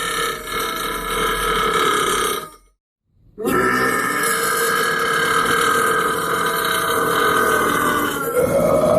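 A man burping: one long drawn-out burp that cuts off about two and a half seconds in, then after a short gap a second long burp that changes and rises in pitch near the end.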